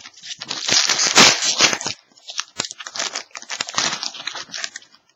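Foil wrapper of a 2013-14 Upper Deck Artifacts hockey card pack being torn open and crumpled, loudest in the first two seconds, followed by a run of smaller crinkles and clicks as the cards are handled.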